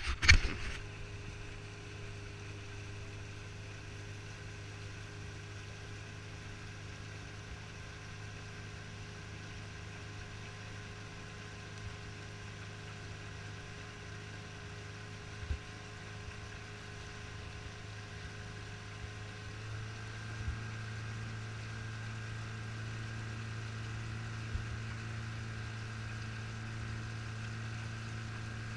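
A small boat's motor running steadily with a low, even hum, picking up slightly about two-thirds of the way through. A loud knock sounds right at the start.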